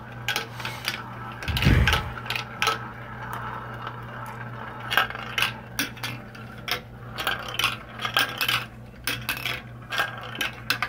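Marbles rolling and clattering through a plastic marble run: a quick, irregular run of sharp clicks and clacks as they drop through the tubes, funnels and bowls.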